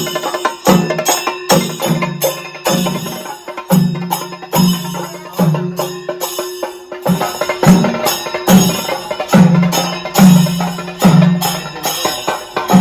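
Upbeat outro music with a steady drum beat, a hit about every second, and bright percussion over it.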